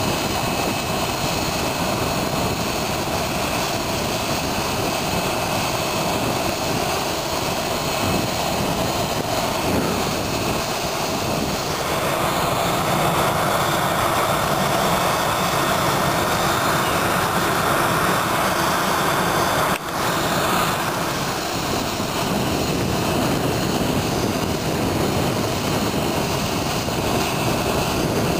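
Rear-mounted turbofan engines of an MD-80-series jet airliner running steadily close by, a continuous jet noise that grows somewhat louder partway through, with a momentary dip.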